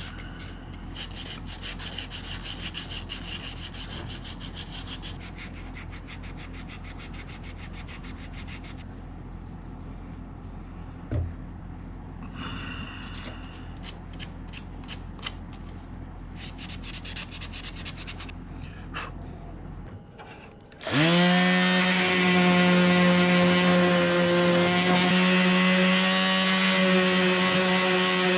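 Repeated hand rubbing strokes on metal, working the pitting off an old revolver's steel. About twenty seconds in, an electric power tool starts up and runs steadily with a loud, pitched hum.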